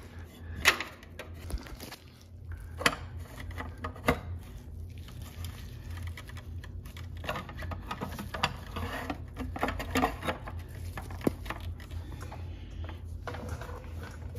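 A wrench and bottom bracket tool clicking and clinking on the metal bottom bracket cup of a Wahoo KICKR Bike as the cup is tightened. A few sharp clicks come in the first four seconds, then a run of small irregular ticks, over a low steady hum.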